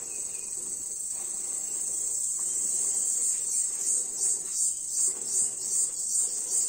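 Milk squirting from a cow's teats into a metal bucket during hand milking: a high hiss that, from about four seconds in, settles into a regular pulse of two to three squirts a second.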